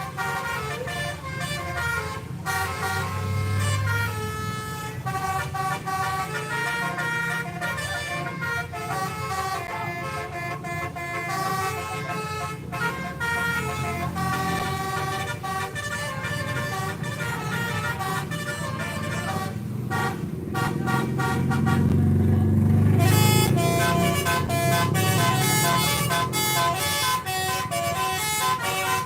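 Bus 'telolet' multi-tone air horns playing quick runs of stepped notes like a tune, over the low rumble of a heavy bus engine that is loudest about three-quarters of the way through.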